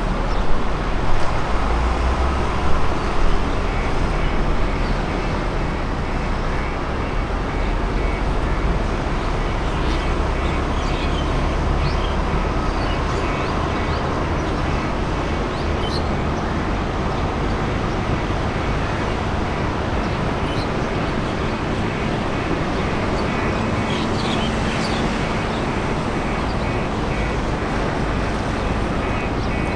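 Steady rumble and roar of engines, heavier in the low end for the first several seconds, with a faint high whine held throughout and a few louder bumps in the first three seconds.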